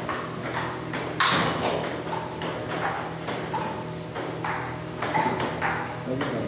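Table tennis balls clicking off rackets and the table in rallies, irregular pings from more than one table at once, with voices in the background.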